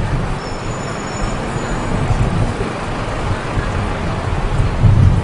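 A low, steady outdoor rumble like street traffic, with wind buffeting the microphone in a gust near the end.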